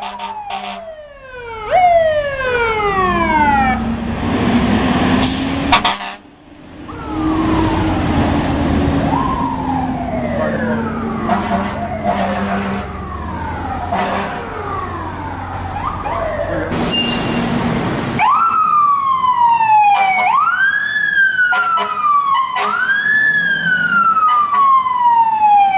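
Fire engine sirens on an emergency response: an electronic siren sweeping repeatedly from high to low, with a slower low-pitched rise and fall of a mechanical siren underneath and truck engine noise. From about eighteen seconds in, a siren whose cycles rise quickly and fall slowly, about two seconds apart.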